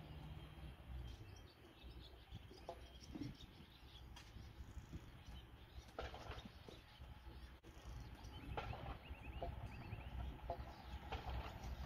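Faint open-air ambience: a low wind rumble, with a few short bird chirps, a quick run of them about two-thirds of the way in.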